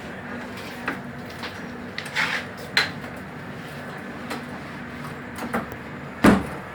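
Inside a moving passenger train coach: a steady running hum with several sharp knocks and clatters, the loudest near the end.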